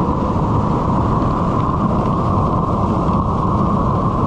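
Fire hydrant flowing wide open: a loud, steady rush of water that does not let up.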